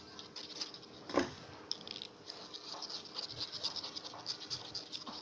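Rapid, light scratching and ticking of shampoo and salt being worked together for slime, over a low steady hum. About a second in there is one brief, louder sound that falls in pitch.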